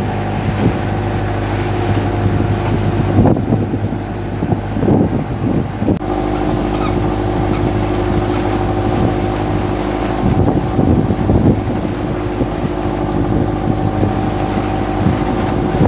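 Longline tuna boat's engine running steadily, with occasional knocks on board. Its hum changes pitch abruptly about six seconds in.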